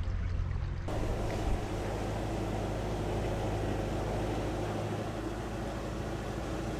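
Narrowboat's diesel engine running steadily while cruising, with an even hiss of noise over it. The sound changes abruptly about a second in, as at a cut between shots.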